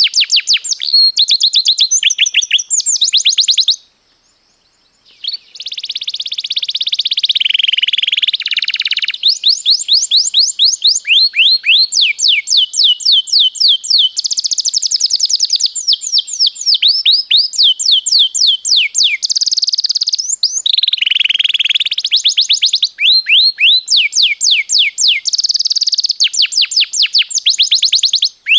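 Domestic canary singing long rolling trills: fast runs of repeated down-slurred notes. There is one short pause about four seconds in.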